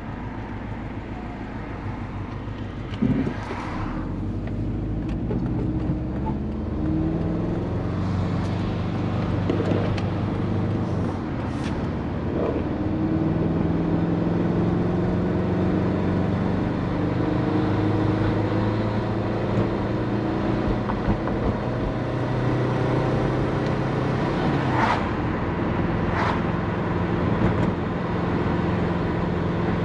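Turbocharged Subaru Forester's EJ20 flat-four with a big GT3582 turbo, under way: the engine note rises and falls back several times. There is a sudden loud knock about three seconds in and a few short sharp sounds near the end.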